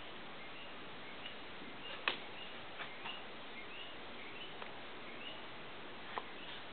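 Steady hiss of a quiet, empty room. Faint short high chirps recur throughout, and a few sharp clicks come through, the loudest about two seconds in and another about six seconds in.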